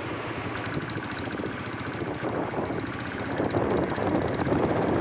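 Motorcycle engine running while riding, with wind buffeting the microphone; it grows louder about three seconds in.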